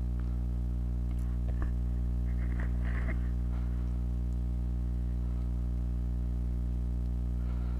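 A steady low hum with many evenly spaced overtones, unchanging throughout, with faint indistinct store sounds about two to three seconds in.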